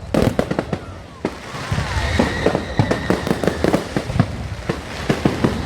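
Fireworks going off in a rapid, irregular run of sharp cracks and bangs.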